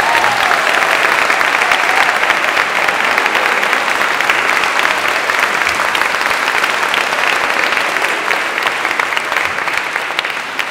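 Concert audience applauding, a dense steady clatter of many hands that begins to die away near the end.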